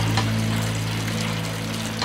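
Steady hiss of rain falling, with a held low chord of background music underneath that fades slightly.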